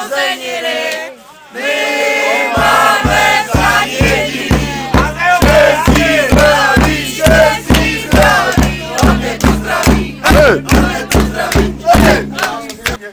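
A group of voices singing a chant together. About two and a half seconds in, a steady beat with a bass line comes in under them, about three beats a second.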